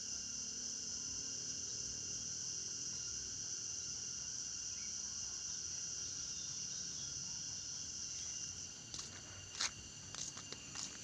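Steady, high-pitched chorus of crickets or similar insects, thinning about eight seconds in. Near the end, a few scuffing footsteps on a concrete path.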